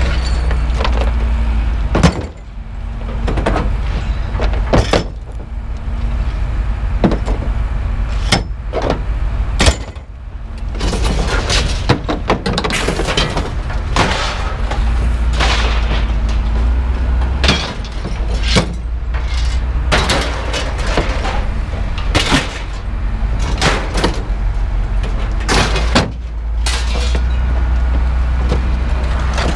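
Scrap iron being pulled from a pickup truck bed and tossed off, with many irregular sharp metal clangs and bangs over a steady low rumble.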